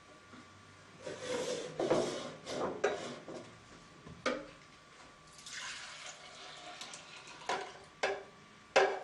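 Green juice pouring and sloshing as juice jugs are handled, with a few sharp knocks of the jugs being set down on the scales, most of them in the second half.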